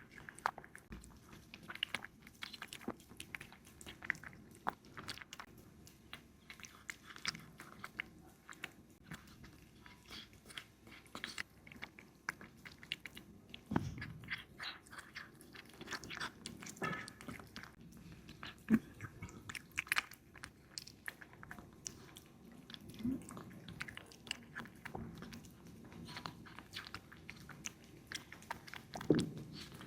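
Kitten chewing and biting meat: a quick, irregular run of small wet clicks from its teeth and jaw, with a few louder bites now and then.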